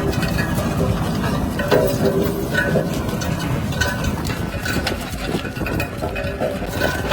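A heavy machine's engine running with a rough, steady rumble, with short squeaks or clinks about once a second.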